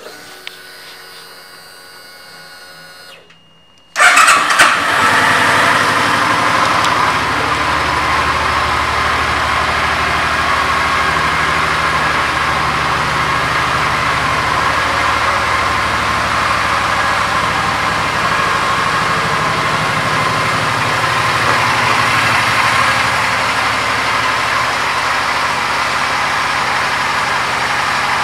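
2008 Suzuki Boulevard C50T's 805 cc V-twin started about four seconds in, catching at once, then idling steadily. A faint steady hum comes before it.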